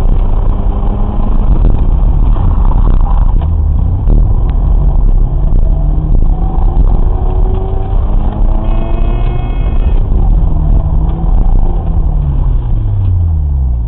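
Car engine heard from inside the cabin during a hard autoslalom run, revving up and down through the cone course. It drops steadily in pitch near the end as the car slows.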